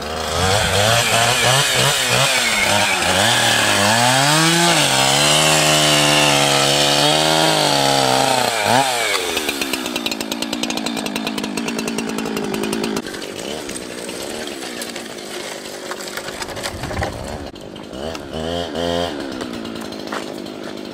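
Chainsaw cutting through a fallen tree trunk, running at high speed with its pitch sagging and recovering under the load for about nine seconds. It then drops back to quieter, slower running, with a couple of short revs near the end.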